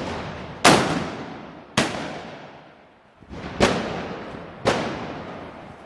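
Four loud gunpowder bangs, about a second apart, each dying away in a long echo.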